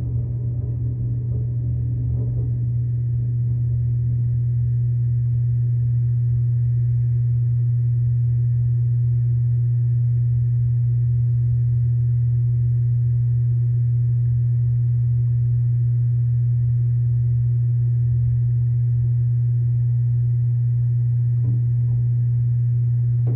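A steady low hum that holds one pitch without change.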